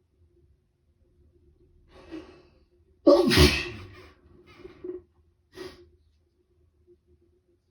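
A person with a head cold sneezing: an in-breath, then one loud sneeze about three seconds in, followed by two shorter, weaker breaths.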